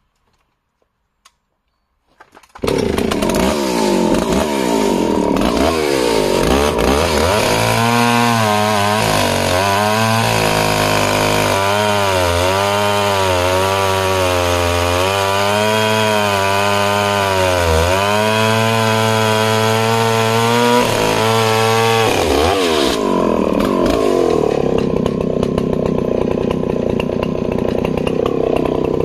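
Stihl 041AV 61cc long-stroke two-stroke chainsaw starting up about two and a half seconds in, then cutting into a log at full throttle. Its engine pitch dips and recovers again and again as the chain loads in the cut, and it runs steadier near the end.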